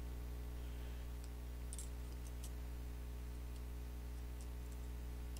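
A steady low hum with several faint, short clicks and ticks scattered through it, from gloved fingers handling and pressing small heat shields onto an iPhone 6 logic board.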